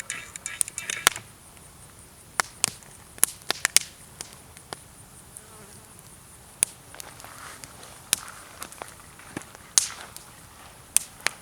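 Campfire wood crackling and popping: irregular sharp snaps, some loud, over a soft hiss.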